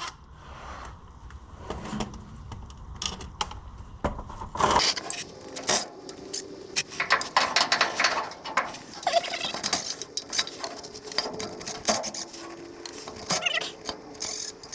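Hand tools working the oil pan bolts off an old gas engine: quick, irregular clicking of a wrench with metal clinks and taps, busiest from about five seconds in.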